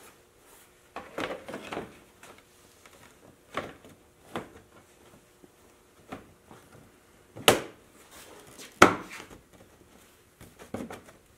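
Hard plastic handlebar pod cover of an ATV being handled and pressed back into place: rustling and scattered plastic clicks, with two sharp knocks a little over a second apart past the middle.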